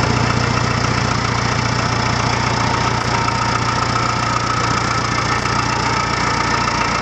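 Ford 901 Diesel tractor's four-cylinder diesel engine idling steadily.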